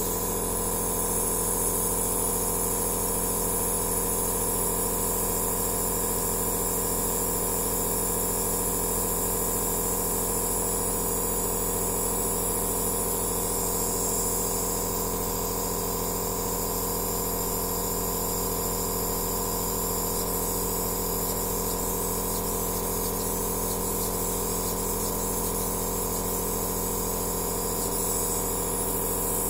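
Compressor nebulizer (aerosol therapy machine) running steadily: an even motor hum with a constant hiss of air and mist.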